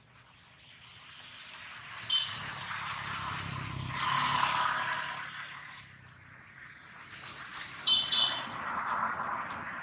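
Baby long-tailed macaque screaming in distress as a larger monkey pins and bites it. There are short shrill squeals about two seconds in and again near the end, around a louder stretch of screeching that peaks just before halfway.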